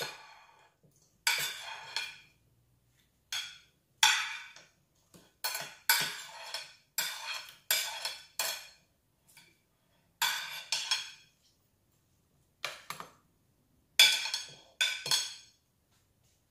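Metal spoon clinking and scraping on a ceramic plate while chopped chillies are scooped off it into a food processor bowl: a couple of dozen irregular clinks, each with a short ring, in bunches with short pauses between.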